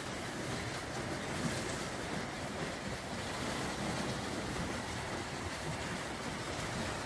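Heavy thunderstorm downpour: rain pouring down with a steady, even hiss.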